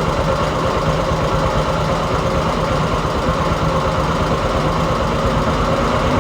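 Heavy construction machine's diesel engine running steadily at idle.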